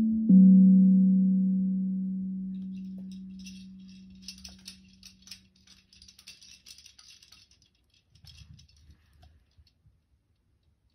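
A low-pitched bell is struck once and rings, fading away over about three seconds. Then a hand shaker rattles in uneven shakes for several seconds and trails off before the end.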